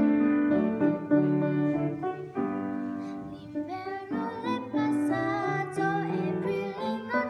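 Grand piano playing a short introduction, then a girl's solo voice begins singing over the piano accompaniment about three and a half seconds in.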